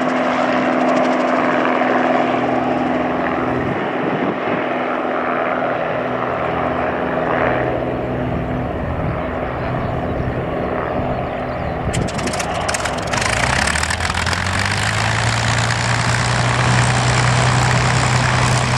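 A formation of light helicopters, Robinson R22s and R44s with a Bell 505, flying past, their rotors and engines mixing into a steady drone. About two-thirds of the way through the sound turns broader and hissier, and a deeper hum comes in and grows louder toward the end.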